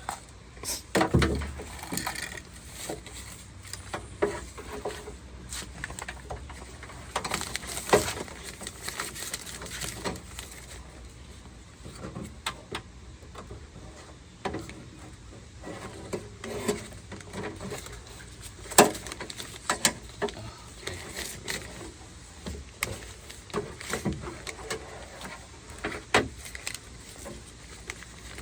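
Scattered clicks, taps and knocks of parts and tools being handled while a car door's lock parts and inner panel are put back together, with a few sharper knocks standing out.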